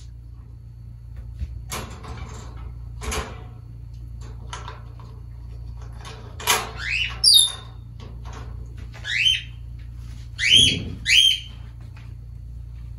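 African grey parrot calling: a string of short, rising whistles, the loudest around the middle and again near the end. Two short rough noises come in the first few seconds.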